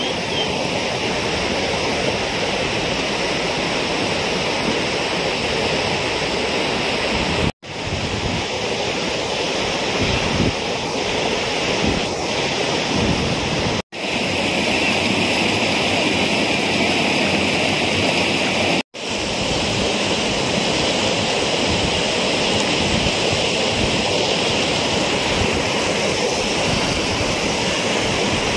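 Fast-flowing floodwater rushing steadily, with wind buffeting the microphone. The sound cuts out briefly three times.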